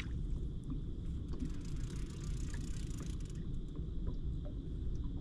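Steady low rumbling noise, with a few faint light clicks.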